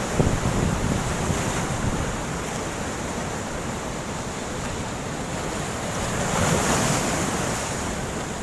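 Sea waves breaking and washing up the shore in a strong wind, with wind buffeting the microphone. One wave swells louder about six and a half seconds in.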